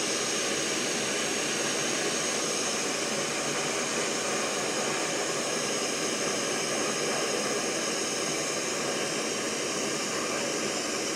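Jetboil gas-canister stove burner running at full, a steady, loud hiss, while the cup of water on it comes up to the boil.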